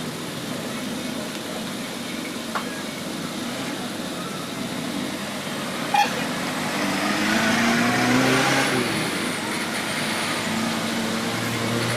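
Road traffic noise with a motor vehicle passing, loudest about eight seconds in, and a sharp click about six seconds in.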